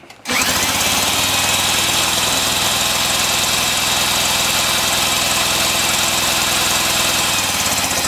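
Half-inch Milwaukee electric drill on the flywheel nut, spinning a Johnson 15 hp outboard's crankshaft over. The engine had been seized and has just been freed and lubricated. The drill whines up to speed about a quarter second in and runs steadily over a rapid, even chugging from the engine turning over, then begins to wind down near the end.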